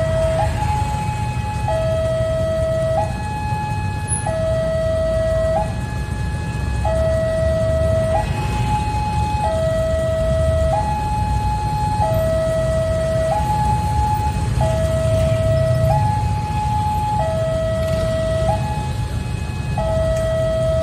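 Railway level-crossing warning alarm sounding a repeated two-tone signal, switching between a lower and a higher tone about every second and a bit, the sign that the crossing is closed for an approaching train. Under it is the low rumble of queued motorcycle and car engines idling.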